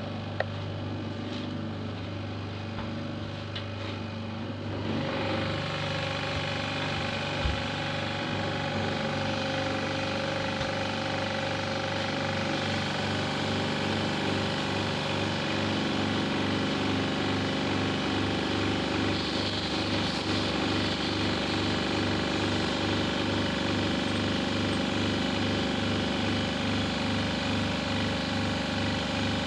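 High-pressure washer running with a steady, evenly pulsing pump hum; from about five seconds in, a fuller hiss of spraying water joins it as the washing of the air-conditioner parts gets under way. A single sharp knock comes at about seven and a half seconds.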